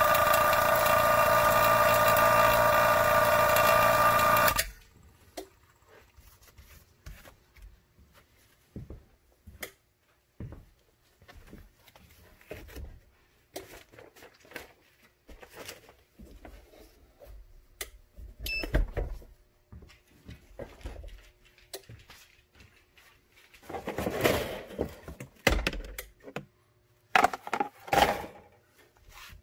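HFS two-stage 12 CFM vacuum pump running steadily with a constant whine, pulling vacuum on the table, then stopping abruptly about four and a half seconds in. After that, faint clicks and taps, with a few louder rustling noises near the end.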